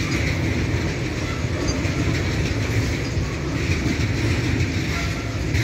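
BTPN petroleum tank wagons rolling past on steel rails: a steady rumble and rattle of wheels and bogies.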